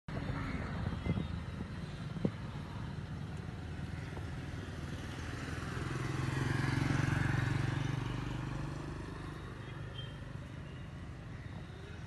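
A motor vehicle passing, its engine sound swelling to a peak about seven seconds in and then fading. Two short sharp clicks come about one and two seconds in.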